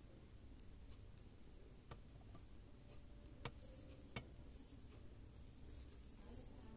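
Near silence with a few light clicks of metal knitting needles as stitches are worked, three distinct ticks about two, three and a half and four seconds in.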